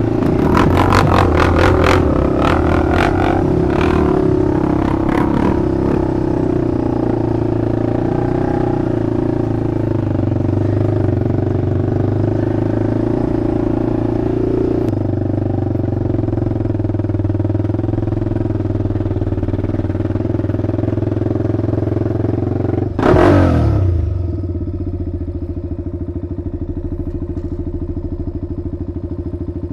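Honda TRX400EX's single-cylinder four-stroke engine running while the quad is ridden over rutted dirt, with clattering knocks in the first few seconds. About 23 seconds in the engine gives a quick rev up and down, then settles to a steady idle.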